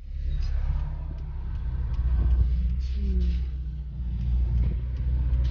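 Car driving, heard from inside the cabin: a steady low rumble of engine and road noise, with a short falling tone about three seconds in.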